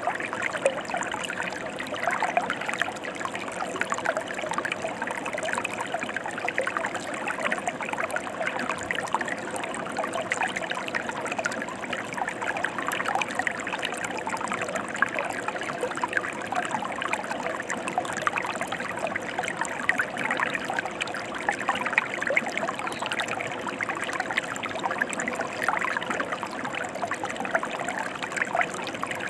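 Mountain stream water flowing steadily over rocks, a continuous even wash of small splashes and bubbling.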